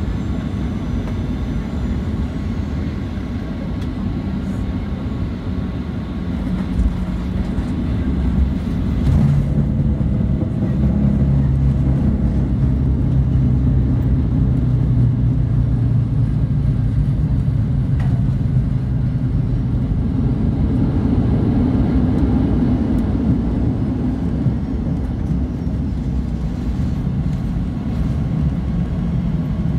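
Cabin noise inside a Boeing 737-900: a steady low rumble of the engines and airframe. It grows louder about nine seconds in, with a low hum standing out for roughly ten seconds before easing.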